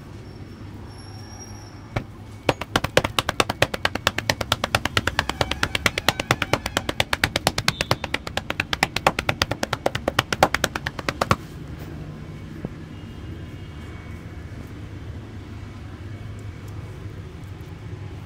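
Barber's hands slapping rapidly on a customer's head in Indian head-massage percussion: a long run of quick, sharp, evenly paced slaps that starts about two seconds in and stops abruptly after about nine seconds, over a steady low background hum.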